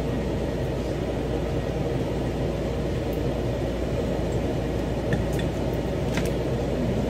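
Steady rushing hum of a kitchen range hood exhaust fan running, with a few faint light clicks about five to six seconds in.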